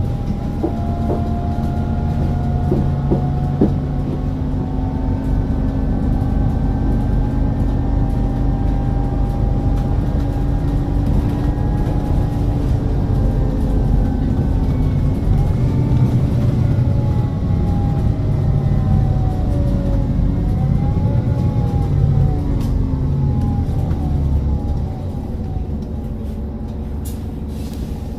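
Volvo B5TL double-decker bus with a ZF automatic gearbox running on the move: a steady low engine drone under several whining tones that rise and fall as the bus speeds up and slows. A few clicks near the end.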